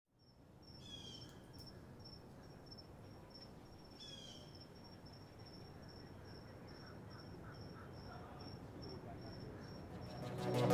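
Quiet woodland ambience: an insect chirping steadily in a regular high-pitched pulse, with two short descending bird calls about one and four seconds in. Near the end a sound swells up, rising in loudness.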